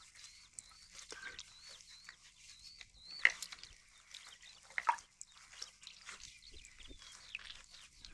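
A faint high chirp repeating about twice a second, with scattered light clicks and knocks and two louder knocks near the middle.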